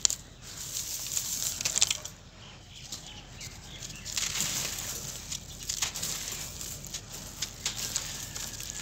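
Dry sand-cement clods crushed and crumbled by hand, the grit and dust pouring through the fingers onto a wire fan grille with a gritty hiss and a few sharp ticks of falling bits. It comes in surges, with a quieter spell between about two and four seconds in.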